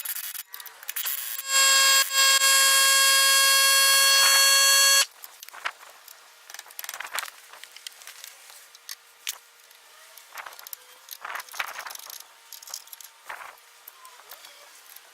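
Electronic buzzer sounding one loud, steady, even tone for about three and a half seconds, starting abruptly and cutting off suddenly, followed by scattered light clicks and clinks.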